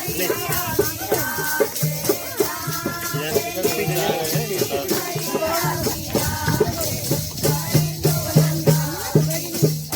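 Folk dance music with a steady rattling shaker beat, a repeating low bass note and a melody line.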